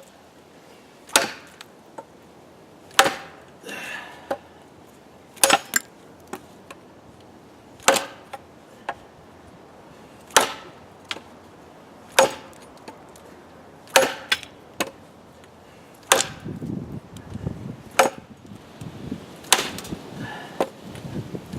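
Machete chopping into a piece of very dry, hard wood. About ten sharp blows land, roughly one every two seconds.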